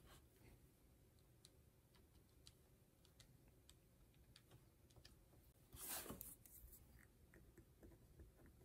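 Faint, scattered clicks of scientific calculator keys being pressed, with a brief rustle of paper about six seconds in.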